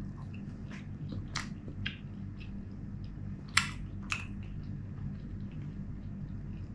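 A person eating kubboos flatbread dipped in mutton gravy: soft chewing and mouth sounds with a few short, sharp clicks, over a steady low hum.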